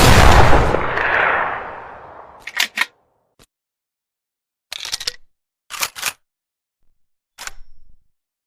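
TOZ over-and-under shotgun firing a shot whose blast echoes away over about two seconds. A run of sharp metallic clicks and clacks follows in several short groups, typical of the break action being opened, reloaded and snapped shut.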